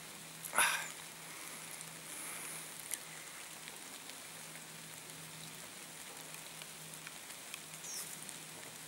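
Light rain falling in the forest, a faint steady hiss, with one short louder sound about half a second in.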